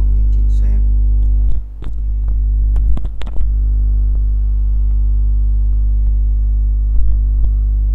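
Steady electrical mains hum and buzz in the recording chain, an unchanging low drone with a stack of overtones. A few short knocks about one and a half and three seconds in.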